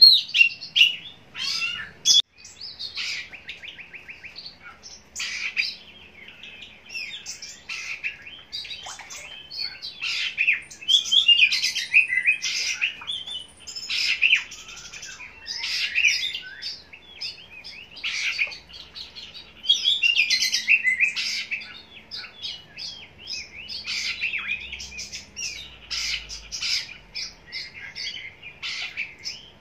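Oriental magpie-robin (kacer) singing a varied run of whistles, chirps and fast trills in phrases broken by short pauses.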